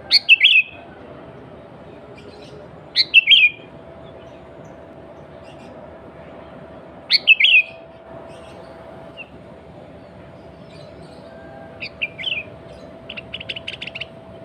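Sooty-headed bulbul (kutilang) singing its natural song: three loud, short bubbly phrases a few seconds apart, then a softer phrase and a quick run of short notes near the end. A faint steady hum lies under it.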